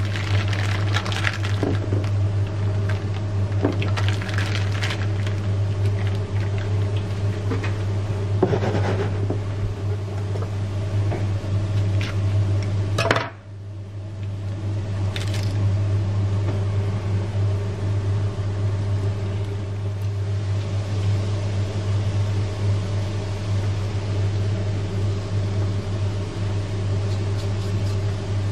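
Steady low electrical hum that breaks off briefly a little under halfway through, with scattered clinks and knocks as raw livers are handled in a glass dish and seasoned.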